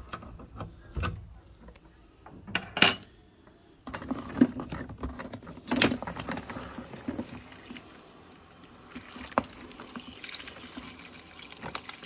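A few light clicks, then about four seconds in water starts rushing steadily out of the boiler's drain-off through a hose into a plastic bucket, letting the pressure out of a sealed central-heating system.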